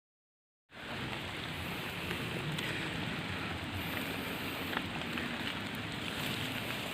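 Heavy rain pouring steadily in a storm, cutting in abruptly a moment in, with scattered small ticks of drops striking nearby surfaces.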